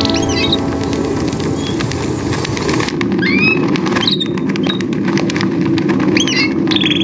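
Small birds chirping in short rising-and-falling calls, several times, over a dense fluttering of many wings as a flock flies past.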